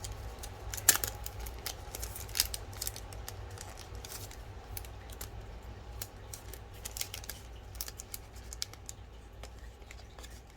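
Small clicks, taps and rustles of figure packaging being handled: cardboard boxes, cards and a plastic minifigure. The sharpest clicks come about a second in and again a second and a half later.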